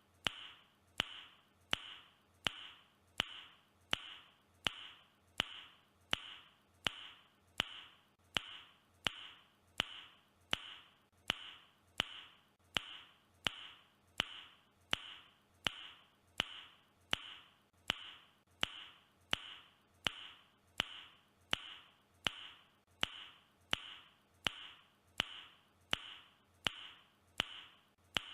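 A person's tongue click, repeated at a perfectly steady rate of about one every three-quarters of a second. Each click is sharp, with a brief hollow ring.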